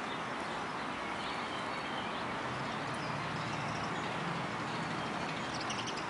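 Steady outdoor background hum, mostly distant road traffic, with a few faint bird chirps near the end.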